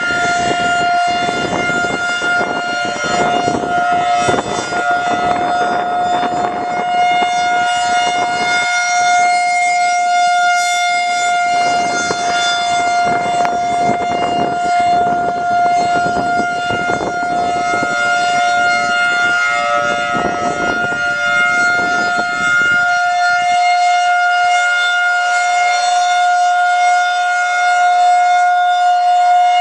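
Federal Signal 2001-130 electromechanical storm siren sounding at full speed: one steady, loud tone held at fixed pitch, not winding up or down.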